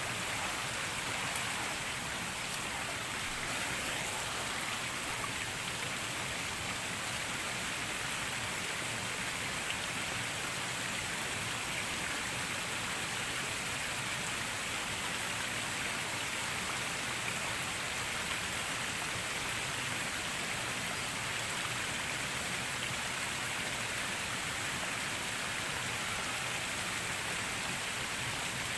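Steady rain falling, an even hiss with no break or change.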